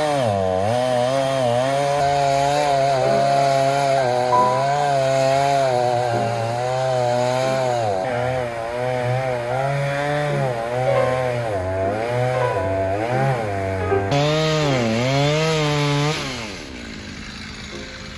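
Two-stroke chainsaw cutting wood, its engine pitch sagging and recovering over and over as the chain bogs in the cut and picks up again. It cuts off near the end.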